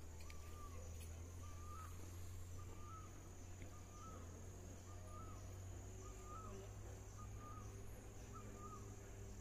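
A bird repeating a short whistled note about once a second, over a steady high hiss and a low rumble.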